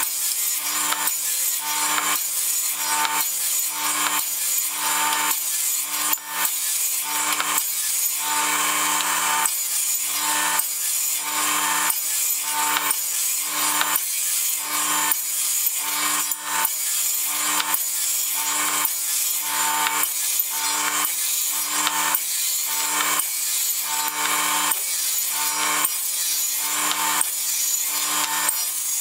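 Table saw with a 60-tooth finishing blade running continuously while slicing 3/8-inch pieces off a block of softwood in repeated passes, the cutting noise swelling and easing with each pass in an even rhythm.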